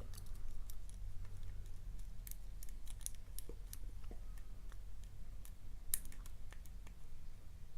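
Irregular light metallic clicks and ticks of a lock pick and tension wrench working the pin stack of a challenge padlock, with a steady low hum underneath.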